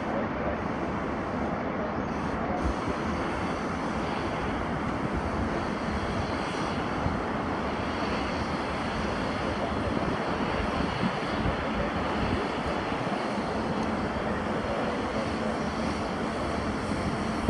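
Distant steady roar of a Boeing 787 Dreamliner's twin jet engines as the airliner rolls along the runway.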